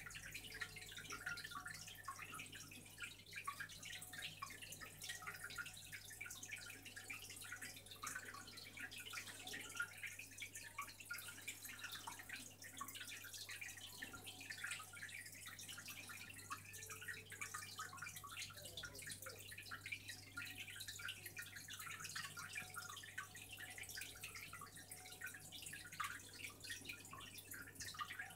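Faint aquarium water sounds: a steady patter of small drips and trickles, over a low steady hum.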